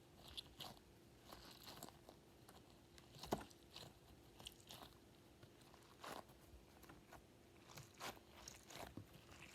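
Faint, scattered clicks and crunches of a fidget toy being handled, the sharpest about three seconds in, over a faint steady hum.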